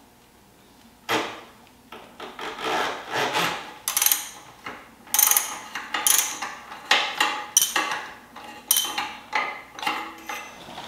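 Socket ratchet on an extension, worked in short strokes to loosen an oil filter: a run of raspy ratchet clicks and scrapes, starting about a second in.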